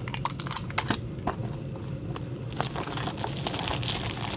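Clear plastic shrink-wrap crinkling and tearing as it is stripped off a sealed cardboard trading-card box, with scattered small crackles and clicks, busier in the second half.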